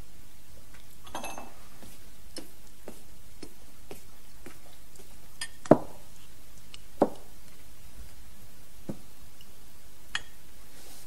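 Cutlery and dishes clinking on a table during a meal: scattered light clicks, with two sharper knocks a little past halfway and a couple of fainter ones near the end.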